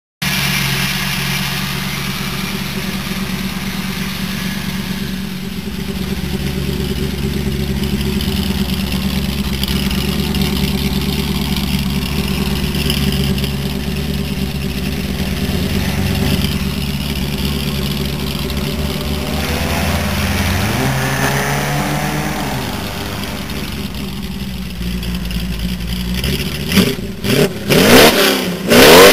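1937 Chevrolet coupe's engine idling steadily through its custom exhaust, with a short rise in revs about three-quarters of the way through. In the last few seconds it is revved hard in several quick blips, much louder than the idle.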